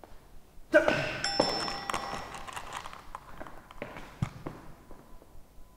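A ringing, chime-like ping about a second in, then scattered light taps and knocks of a plastic cup and tableware handled on a table, with one dull thud about four seconds in.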